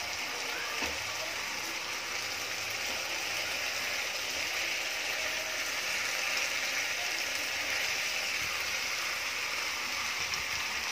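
Chicken, onion and tomato frying in oil in a pan, a steady sizzle, with occasional scrapes of a wooden spatula stirring the mix.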